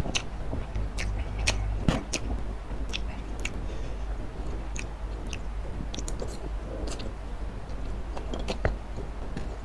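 Close-miked chewing of Samyang spicy instant noodles, with irregular sharp wet clicks from the mouth.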